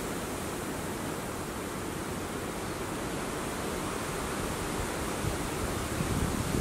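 Steady rushing noise with no distinct events, growing a little louder and more uneven near the end.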